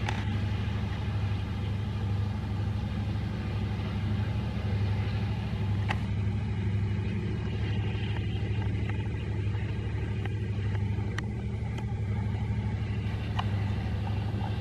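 EMD SD70LC diesel-electric locomotive's two-stroke engine running with a steady, pulsing low drone, with a few light clicks.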